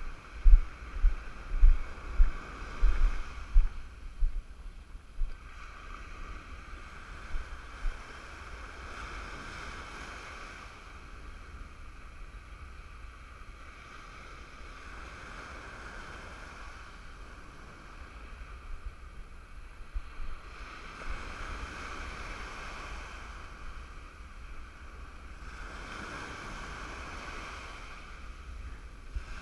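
Ocean surf breaking and washing up the beach in surges that swell and fade every few seconds. Over the first several seconds, gusts of wind thump on the microphone.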